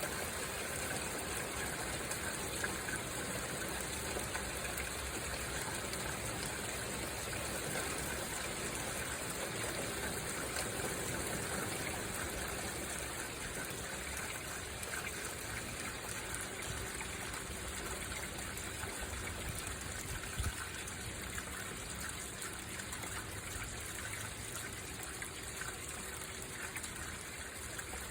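Steady rain falling, an even hiss with trickling water. One brief low knock about two-thirds of the way through.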